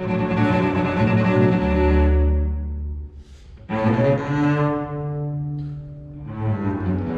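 Cello and double bass playing a bowed duet in sustained phrases, with a deep low note held about two seconds in. The playing dips briefly a little past three seconds in, then a new phrase begins.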